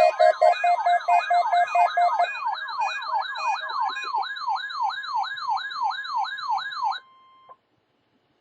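Electronic siren-style alarm: a falling sweep repeats about three times a second over a steady high tone, layered with other electronic beeps. It cuts off suddenly about seven seconds in.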